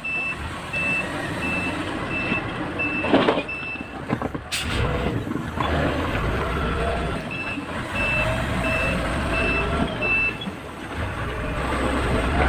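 Motor grader's diesel engine running while its reversing alarm beeps in two runs, about three beeps every two seconds with a pause between. A single sharp knock comes about four and a half seconds in.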